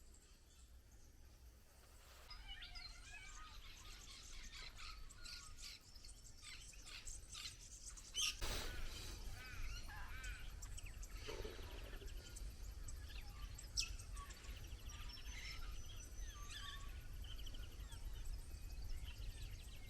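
Several birds calling and chirping outdoors, many short chirps and gliding calls, over a steady low rumble of wind. A brief knock is heard about eight seconds in.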